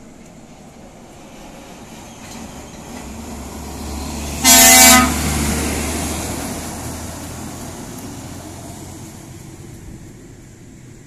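Pertamina fuel tanker truck passing close, its diesel engine drone growing louder as it approaches. Near the middle comes one short, loud, steady horn blast, then the engine sound fades as the truck moves away.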